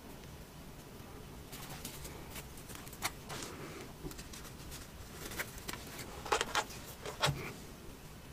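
Faint handling sounds of hands working bobby pins and a comb at the head: scattered small clicks and rustles, a few sharper ticks near the end.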